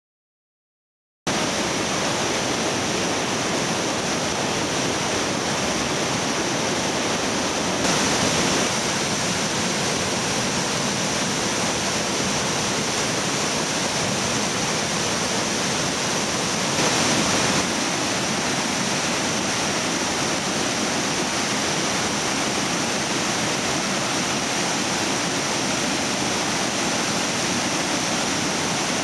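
Floodwater pouring through the open gates of a lake dam and over boulders below it: a steady, loud rush of whitewater at high water. It starts suddenly about a second in and swells briefly louder twice.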